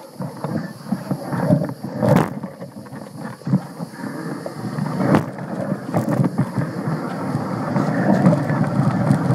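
Mountain bike rolling over a rough dirt trail: a continuous rumble of tyres and rattling parts, with a couple of sharp knocks from bumps and wind on the microphone.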